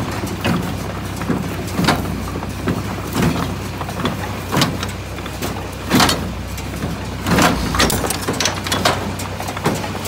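McCormick IH 46 square hay baler running and baling hay: a steady low drive drone with frequent metallic clanks and rattles, about one or two a second.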